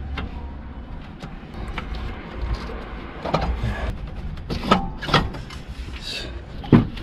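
Metal knocks and scrapes as a steel pry bar levers an alternator loose from its mounting bracket, with several sharp clanks, the loudest about two-thirds of the way in and again near the end.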